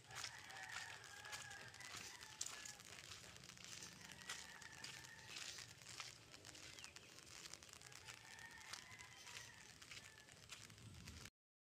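Faint rural outdoor ambience with light crackling and rustling. A faint, steady, high call sounds three times, about four seconds apart.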